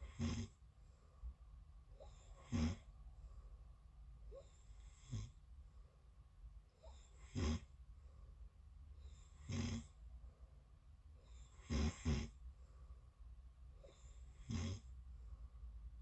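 A person asleep, snoring: short snores about every two and a half seconds, seven in all, with a quick double snore about twelve seconds in.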